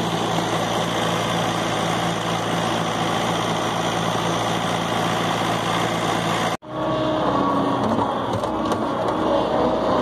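John Deere skid steer engine idling steadily, heard close to its exhaust outlet. It breaks off suddenly about two-thirds of the way through, then runs on with a steady higher whine over the engine.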